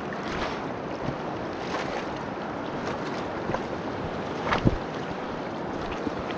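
Steady rushing wash of a mountain river's flowing water, with one short knock a little past the middle.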